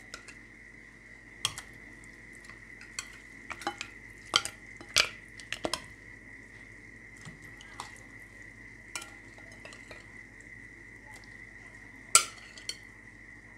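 A metal utensil clinking and knocking against a stainless steel soup pot as fish is added to the boiling broth: scattered sharp clinks, the loudest near the end. A steady high-pitched whine runs underneath.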